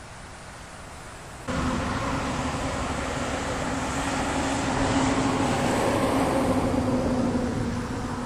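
Dump truck passing on a highway: a steady diesel engine hum with tyre and road noise. It cuts in abruptly about a second and a half in, grows louder toward the middle, then fades as it goes by.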